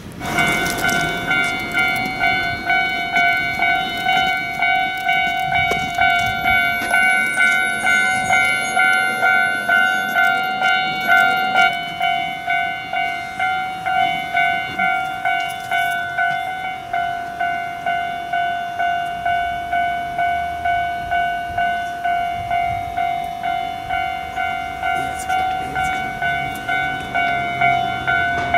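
Japanese railway level-crossing alarm ringing: an electronic bell striking in an even rhythm, about one and a half times a second, starting suddenly as the crossing signals begin to flash. It warns of an approaching train.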